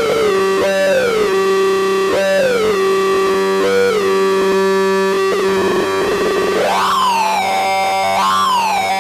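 Electronic sound effect: a pitched tone that keeps swooping up and sliding back down over a steady low drone, with a bigger upward swoop a little after the middle.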